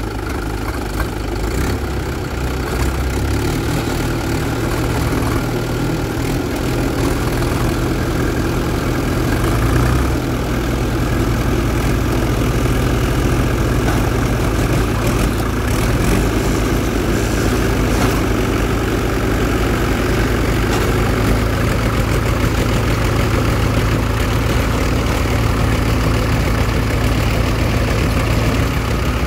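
Diesel tractor engines running hard under load as a loaded sand trolley is pulled through deep sand. The engine note builds about three seconds in and again around ten seconds, then holds steady.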